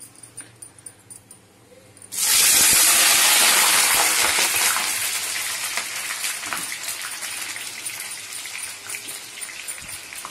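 Wet sliced eggplant going into hot oil in a steel kadai for deep frying: a sudden loud sizzle about two seconds in, which slowly dies down to a steady bubbling crackle. The hard sizzle comes from the water left on the slices after soaking and washing.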